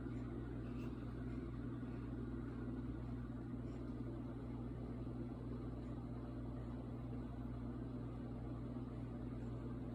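A steady low mechanical hum over an even hiss, unchanging in pitch and level.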